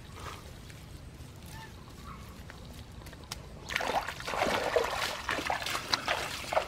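Splashing and sloshing in shallow muddy floodwater, starting about halfway through and getting loud, then hurried wading steps of rubber boots through the water near the end.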